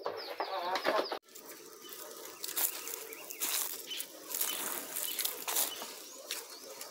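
Hens clucking for about the first second, then an abrupt cut to a run of irregular crunching, rustling and knocking steps on dry ground and twigs as someone walks carrying plastic buckets.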